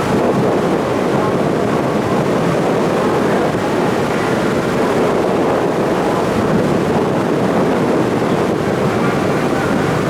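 Steady rumble of a ferry under way, with wind buffeting the microphone.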